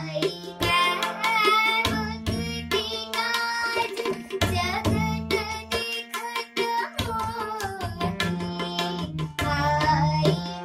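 A girl singing a Hindi Krishna bhajan, accompanying herself on a harmonium, with tabla strokes keeping time under the melody.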